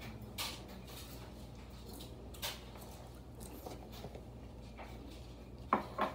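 A few short knocks and taps of kitchen things being handled at a counter, over a steady low hum.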